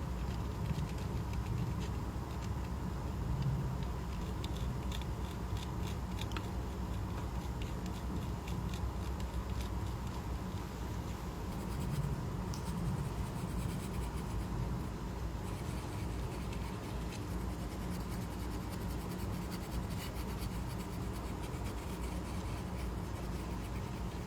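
Light scratching and scraping with scattered small clicks, typical of small hand tools working on a phone, over a steady low hum.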